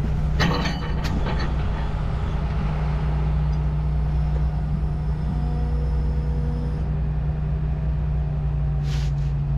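Hitachi Zaxis 210 excavator's diesel engine running steadily, with a quick clatter of knocks about half a second in and a short hiss near the end.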